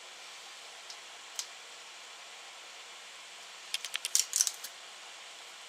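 A quick cluster of light, sharp clicks and taps about four seconds in, with a faint steady hiss throughout: small hard pieces being handled at the scroll-saw table.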